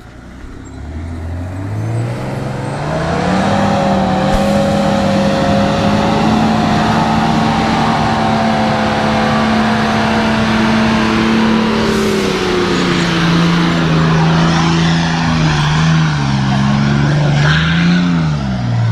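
A four-wheel drive's engine revving up and held at high revs as it claws up a steep, muddy, rutted hill in low range with the throttle held flat and the diff lockers engaged. About twelve seconds in, the revs drop, then rise and fall near the end.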